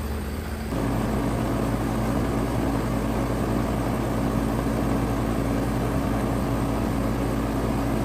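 Heat pump outdoor unit running: a steady hum of the compressor and condenser fan, which steps up suddenly to a louder, fuller sound less than a second in and then holds steady.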